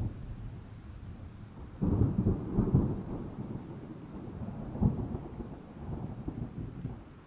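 Thunder rolling: a low, deep rumble that breaks in loudly about two seconds in, swells again around five seconds, and fades away near the end.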